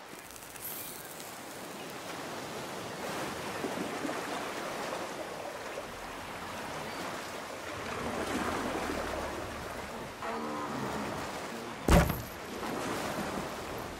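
Water lapping and washing around a wooden jetty: a steady rushing noise that swells and ebbs. Near the end there is a short creak, then one sharp, loud wooden thump by the rowboat.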